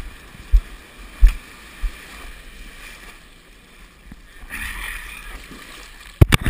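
Ocean whitewater splashing around a surfboard being paddled out, heard through a head-mounted action camera: a few dull thumps in the first two seconds, a rush of foam about four and a half seconds in, and a quick run of sharp splashes against the camera near the end.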